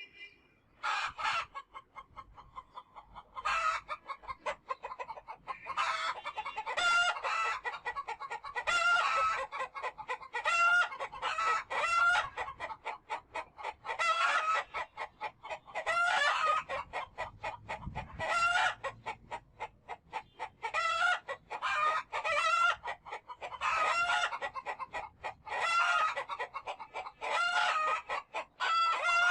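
Chickens clucking and calling, many short pitched calls in quick runs with brief gaps between them.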